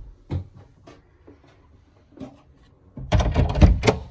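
A couple of light knocks, then about a second of loud, rapid clattering and rattling near the end, as a cabin door is passed.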